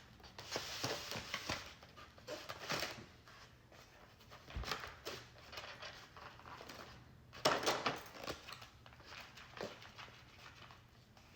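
Irregular rustling, crinkling and clicking of takeout packaging and utensils being handled while a loaded baked potato is opened and prepared, with a louder burst of crinkling and clatter about seven and a half seconds in.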